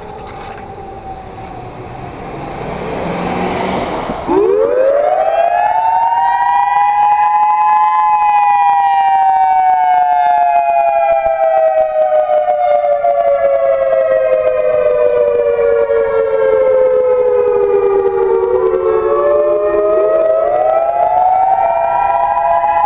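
EOWS-612 electronic tornado warning siren sounding its test wail: after a quieter stretch with a fading, falling tone, it comes up loud about four seconds in, rising in pitch over a few seconds, sliding slowly down for about twelve, then rising again near the end. The tone is two notes sounding together.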